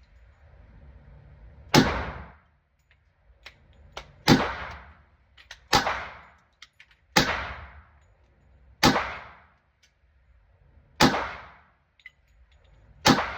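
Glock 20C compensated 10mm pistol firing seven single shots, one every one and a half to two seconds, each a sharp crack with a short fading echo.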